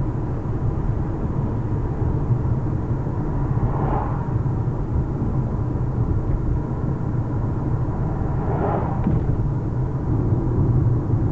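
Steady low road rumble inside a moving car's cabin: tyres running over rough, patched bitumen. The noise swells briefly twice.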